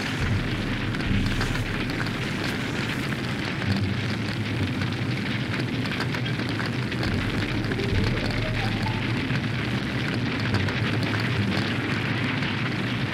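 A burning car's flames crackling steadily: an even rush of fire with many small pops.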